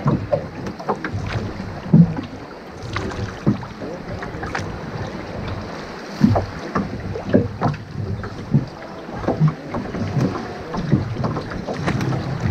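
A pair of oars rowing a small Woods Bee dinghy: irregular knocks and clicks from the oars working in their rowlocks, over wind on the microphone.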